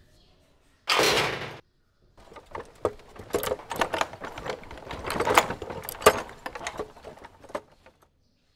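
Collapsible metal grille gate and its lock being handled: a short loud scrape about a second in, then several seconds of irregular metallic clicking and rattling as the lock is worked.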